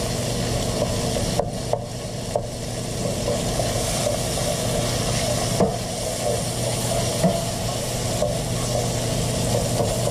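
Pieces of smoked bacon sizzling steadily in a hot stainless steel pan as they render their fat. A wooden spoon stirs and breaks them up, with a few short clicks and scrapes against the pan.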